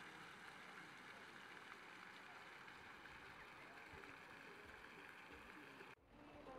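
Faint, steady splashing of ground-level fountain jets falling on wet paving. It cuts off abruptly near the end.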